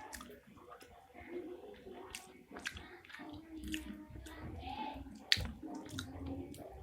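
Close-miked wet chewing and smacking of pentol mercon, Indonesian meatballs in chili sauce, with irregular sticky clicks and squelches. A sharp click about five seconds in is the loudest sound.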